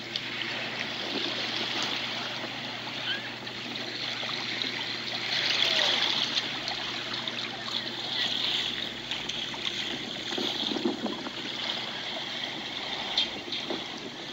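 Shallow sea water lapping and trickling at the shoreline, a continuous wash that swells louder about five to six seconds in.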